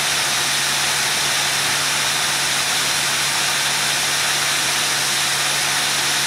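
Ford V10 Triton engine idling steadily, heard close up in the open engine bay: an even low hum under a strong, steady hiss.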